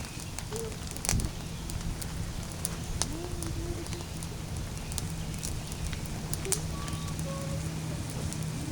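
Small wood fire crackling in a hobo stove: scattered sharp pops and snaps over a steady low hum.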